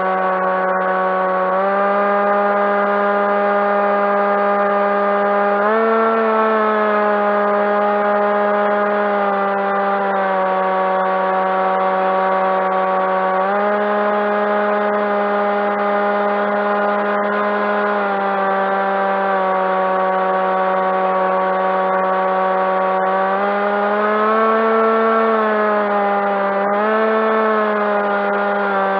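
Electric motor and propeller of a Skywalker fixed-wing RC plane droning steadily in flight. The pitch rises slightly a few times as the throttle is opened, then eases back.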